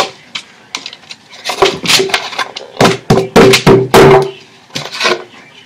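Butternut squash fries being tipped and shaken out of a lidded bowl onto a paper-covered counter: a run of irregular knocks and taps as the bowl is banged and the fries drop onto the paper, thickest in the middle, with a faint ringing from the bowl.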